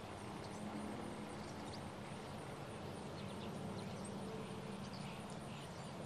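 Large flock of small songbirds in a grass field, giving many faint, scattered chirps and calls over a steady low hum.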